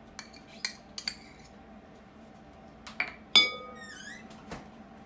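Kitchenware clinking while measuring ingredients: a few light clicks in the first second, then a louder clink about three and a half seconds in that rings briefly, glass or metal being struck.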